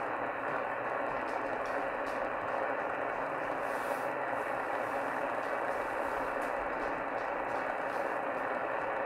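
Shortwave receiver's speaker hissing with steady static while tuned to CB channel 38 (27.385 MHz) in lower sideband. No station comes through in the noise; the distant skip signal has faded out.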